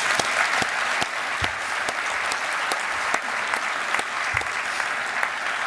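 Audience applauding, a steady round of clapping that holds at an even level.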